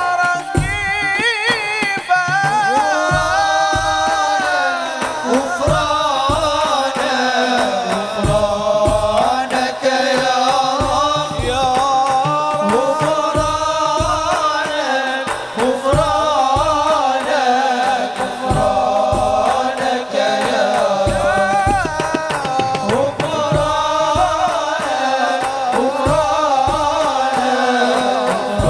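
Arabic sholawat (devotional song) sung by a male lead voice in long, wavering melismatic lines, over a regular beat of hand drums.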